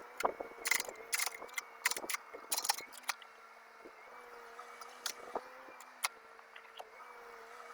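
Komatsu PC30-7 mini excavator running with a steady whine, with a quick series of sharp metallic clanks and knocks in the first three seconds, then only a few now and then.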